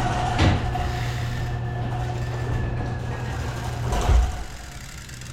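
An SE Bikes Big Ripper bike being shaken to check for loose parts: rattling and clattering, with two sharp thumps, about half a second in and near four seconds. A steady low hum runs underneath.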